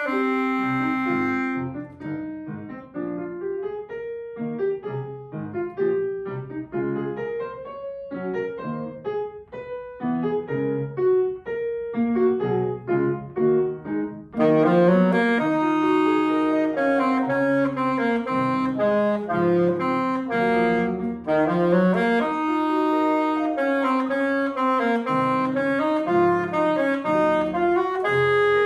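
Alto saxophone and grand piano playing a classical duet. The first half is a quieter passage of short, separated notes; about halfway in the saxophone comes in louder with long held notes over the piano.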